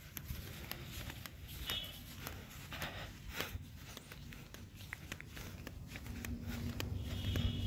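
Footsteps of people walking on dry dirt and grass, with wind rumbling on the phone microphone. A faint high chirp sounds twice, about two seconds in and near the end.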